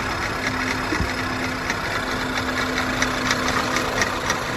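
Skoda Superb 1.8 TSI turbocharged four-cylinder petrol engine idling with a steady hum and irregular ticking; the engine is misfiring.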